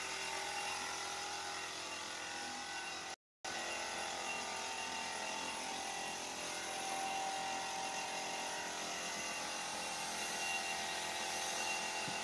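Compressed-air spray gun hissing steadily as it sprays clear finish onto a wooden table top. The sound cuts out for a split second about three seconds in.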